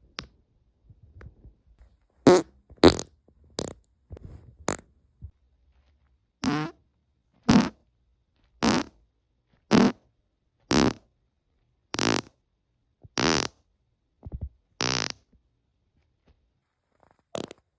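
A person farting again and again: about a dozen short farts, most of them about a second apart, with a longer gap before the last one near the end.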